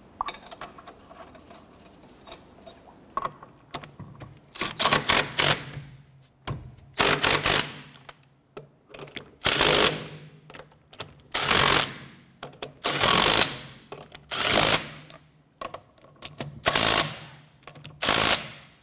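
Cordless 20-volt impact gun hammering wheel lug nuts snug, in a series of short bursts about every one and a half to two seconds, starting about four seconds in. Small clicks of lug nuts being threaded on by hand come before it.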